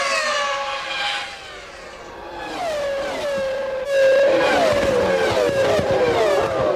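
Formula One race car engine at high revs: the pitch falls as a car goes past and the sound dips briefly, then an engine comes in louder about four seconds in, its pitch repeatedly dropping and jumping back through a quick run of gear changes.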